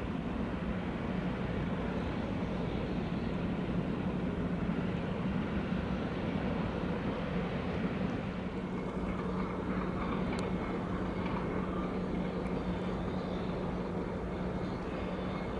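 Steady low drone of ship engines with a constant hum, and a faint click about ten seconds in.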